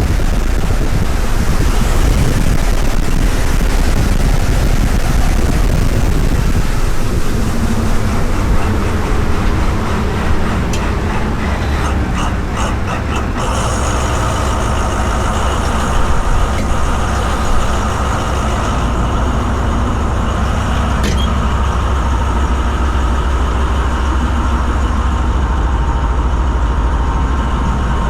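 Heavy diesel engine running loud and steady with a deep drone. About halfway through the sound changes: the hiss fades and a steady whine comes in.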